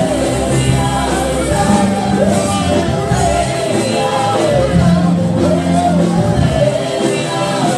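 Live church worship band: several singers on microphones sing a gospel song together over keyboard and electric guitar accompaniment.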